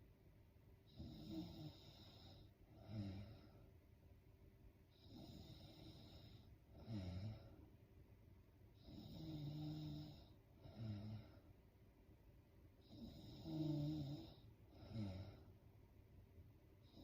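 A sleeping woman snoring with slow, regular breaths, about four breath cycles. Each cycle is a longer snore followed by a shorter one about two seconds later.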